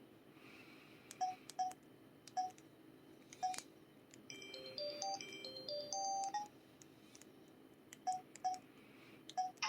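Samsung SPH-X7500 mobile phone's keypad button tones: short pitched 'tong' beeps, each with a key click, several presses about a second in and again near the end. In the middle the phone plays a short electronic jingle of several notes from its 40-voice polyphonic sound chip.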